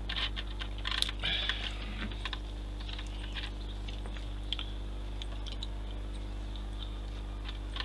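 Small plastic clicks and taps of model kit track parts being handled and pressed together, a quick cluster in the first two seconds, then scattered single clicks.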